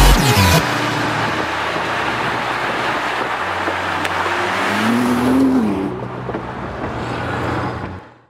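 Nissan GT-R's twin-turbo V6 and road noise as the car drives along. Its engine pitch rises and falls once about five seconds in, and the sound fades out at the end.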